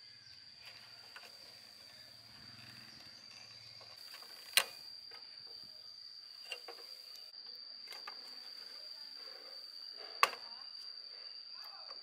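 Plastic wire connectors being handled and unplugged on an air conditioner's control circuit board: faint ticks and two sharp snaps several seconds apart, over a steady high-pitched insect trill.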